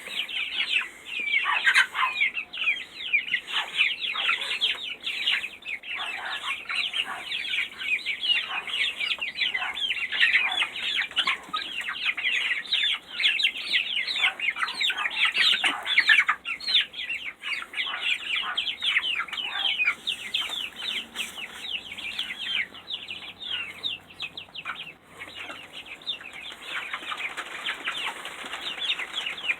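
A flock of chickens calling excitedly as they scramble for mealworms, many short falling calls overlapping one another. The calls are densest for the first twenty seconds or so and thin out near the end.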